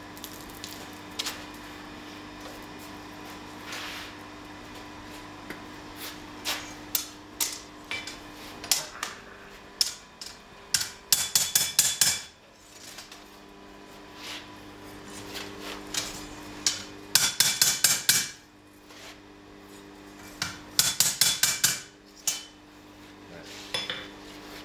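Hammer blows ringing on a freshly oil-quenched steel sword blade on an anvil: a few single taps, then three quick runs of strikes. The smith is straightening warp out of the blade while it is still hot.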